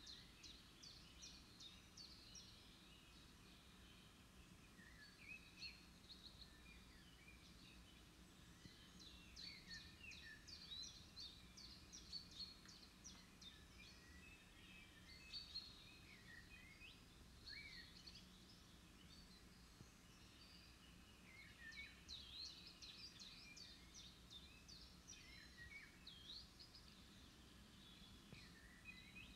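Faint songbird chorus: several birds chirping and trilling in quick, high notes, busier in a couple of stretches, over a faint steady low rumble.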